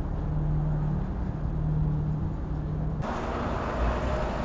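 Street traffic: a vehicle engine's steady low hum, giving way about three seconds in to a broader rush of passing cars.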